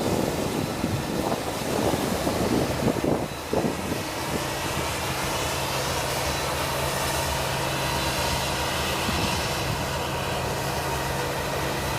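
Farm machinery at a maize harvest, its engine running at a steady speed. The first few seconds are rough and gusty, then it settles into an even engine hum.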